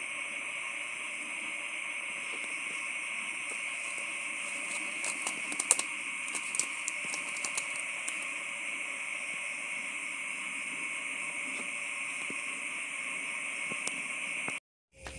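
Night insects chirring steadily in a constant high-pitched chorus, with a cluster of sharp clicks about five to eight seconds in. The sound cuts off abruptly near the end.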